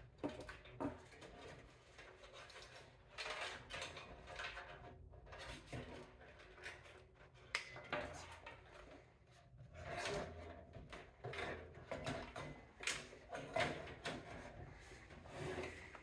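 Faint, irregular clicks, knocks and rubbing of hands handling parts and cables inside a PC case while fitting components and routing cables.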